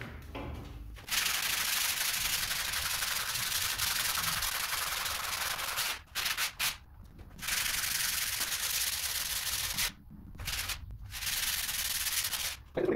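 Sheet of 120-grit sandpaper rubbed by hand over a ceiling: a steady scratching hiss of sanding strokes that starts about a second in and breaks off briefly around six and ten seconds.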